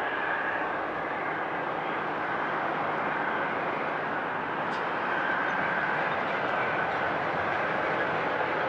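Boeing 777 freighter's GE90 turbofan engines running at low power while the jet taxis slowly before its takeoff roll: a steady whine over a broad rush of noise, growing a little louder about halfway through.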